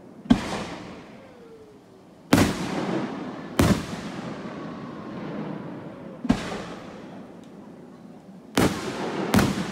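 Aerial firework shells bursting overhead: six sharp bangs spaced irregularly, the last two coming in quick succession near the end, each trailing off slowly.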